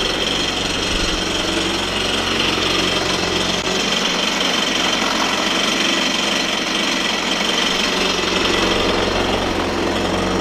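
Kawasaki STX-15F jet ski's four-stroke, four-cylinder engine idling steadily out of the water while it is flushed with fresh water, warming up before winterizing. Water splashes out of the exhaust outlet onto the concrete.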